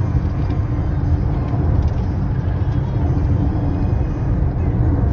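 Steady low road rumble heard from inside a car cruising at highway speed on a concrete freeway: tyre and engine noise.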